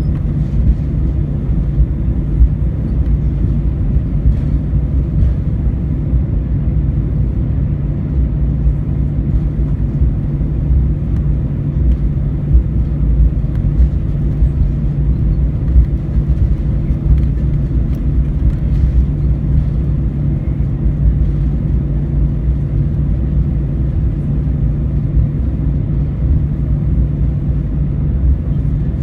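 Cabin noise inside an Airbus A319 taxiing after landing: a steady low rumble with a constant hum, from engines at idle and the airframe rolling along the taxiway.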